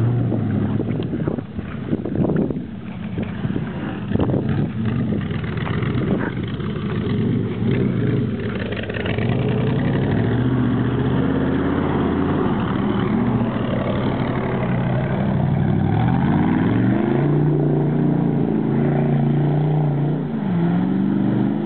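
Jeep CJ7 engine running and revving, its pitch rising and falling again and again. Several sharp knocks in the first eight seconds or so.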